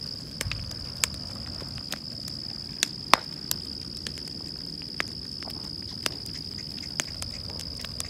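Insects trilling steadily in one high, unbroken tone, with about ten sharp pops from a burning pile of scrap boards.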